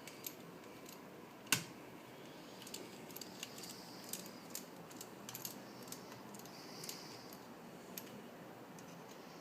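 Quiet, scattered small clicks and ticks of a hex driver and tiny 2 mm screws being worked into a plastic cooling fan, with one sharp click about a second and a half in.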